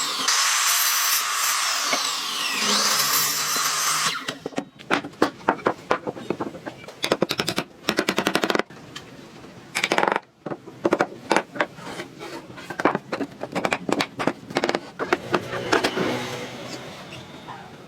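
A power tool runs with a loud high hiss for about four seconds, then stops. Rapid runs of sharp taps and knocks on wood follow.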